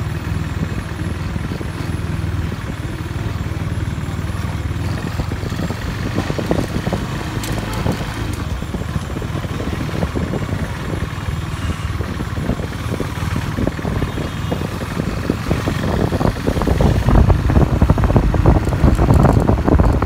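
KTM Duke 390's single-cylinder engine running as the motorcycle rides along slowly, with wind buffeting the microphone. The sound grows louder over the last few seconds.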